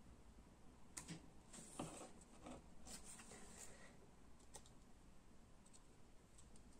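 Faint clicks and short scratches of a craft knife blade cutting through small pieces of watercolour paper, several between about one and four seconds in, then a few lighter ticks.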